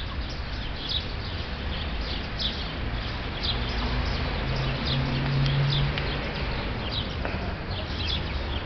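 Small birds chirping, short high chirps repeating every half second or so, over a steady low outdoor rumble. A low hum swells for a couple of seconds in the middle, then fades.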